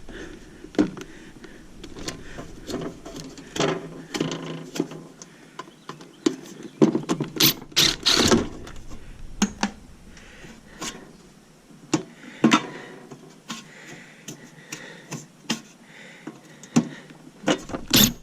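Tools working on a metal equipment case: scattered clicks, knocks and short ratcheting, mechanical stretches as screws and the top plate are worked loose, with a few sharper metal clanks.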